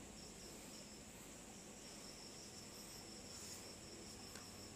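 Faint, steady high-pitched chirring of crickets in the background; otherwise near silence.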